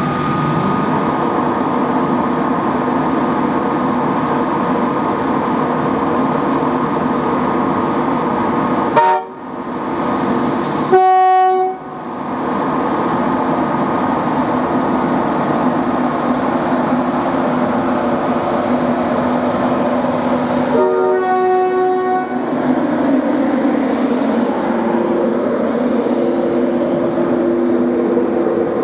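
Class 91 electric locomotive running with a steady drone and whine, its horn sounding three times: a short toot about nine seconds in, a longer blast about two seconds later and another at about twenty-one seconds. Near the end the whine rises in pitch as the locomotive pulls its coaches away.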